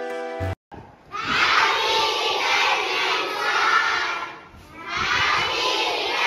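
A classroom of schoolchildren shouting and cheering together, in two long bursts with a short dip about four and a half seconds in.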